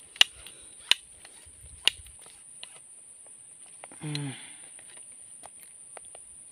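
Three sharp clicks in the first two seconds, over a steady high-pitched insect drone, from fishing tackle being handled while a hooked fish is landed. A brief low falling vocal sound comes about four seconds in.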